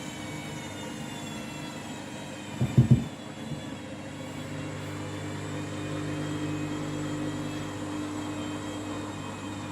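Washing machine on its final spin: the drum motor runs with a steady hum and whine, broken about two and a half seconds in by a quick cluster of loud thumps, then the hum grows a little stronger.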